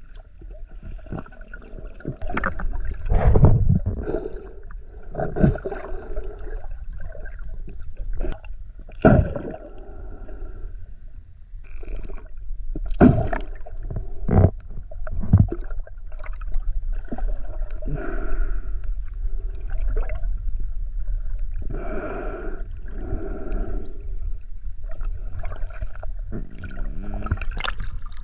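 Water heard through an underwater camera housing during snorkelling: muffled surges of water noise every couple of seconds, with scattered sharp knocks and a steady low rumble underneath.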